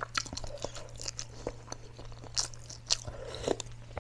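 Close-miked eating of spicy instant noodles: broth sipped from a spoon and chewing, with scattered sharp clicks of the chopsticks and spoon against the metal pan.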